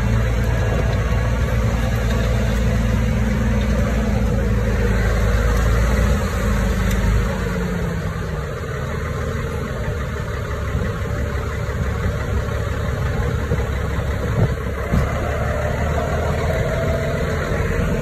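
CAT D3C crawler dozer's diesel engine running steadily. A deep low rumble eases about seven seconds in, leaving a lighter engine note, with a couple of faint knocks near the end.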